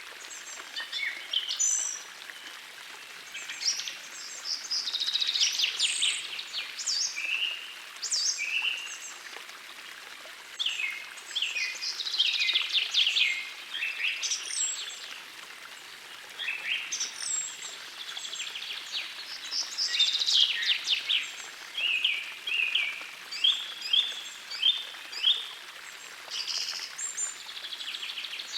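Songbirds singing in bursts of quick trills and short high chirps every few seconds, over the faint steady rush of a small forest stream.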